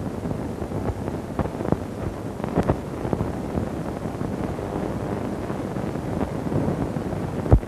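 Steady rushing background noise of an old film soundtrack, with scattered clicks and pops and one sharp low thump near the end.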